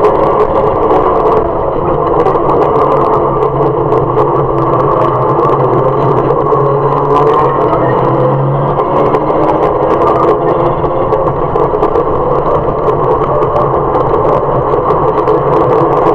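Mazda MX-5 race car's four-cylinder engine heard from inside the cockpit at racing pace, with road and wind noise. The engine note falls as the car brakes hard for a slow corner, then rises again under full acceleration out of it.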